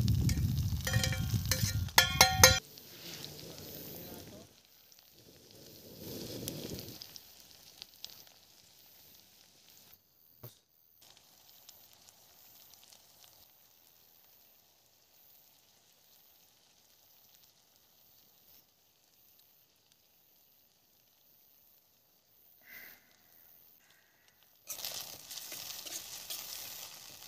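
Food sizzling in a metal pan as it is stirred, with the spoon clinking and ringing against the pan in the first couple of seconds. The sizzle drops to a faint hiss through the middle and comes back loud near the end.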